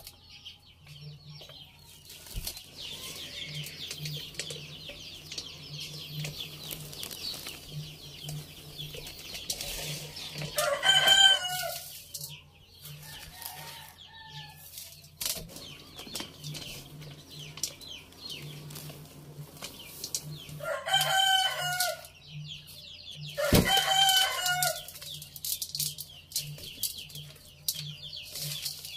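A rooster crowing three times, each crow about a second long, the first and loudest about eleven seconds in and the other two close together near the end.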